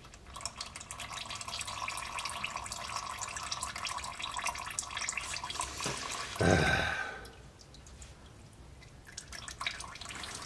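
A thin stream of milky, water-contaminated engine oil trickles from the oil-pan drain hole and patters into a drain pan. There is a brief louder noise about six and a half seconds in.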